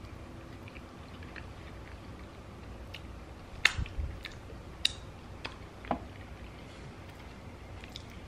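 A person eating sauced chicken wings close to the microphone: chewing, with a run of sharp wet mouth smacks and finger-licking clicks in the middle, the loudest about three and a half seconds in, and another near the end as a wing is bitten.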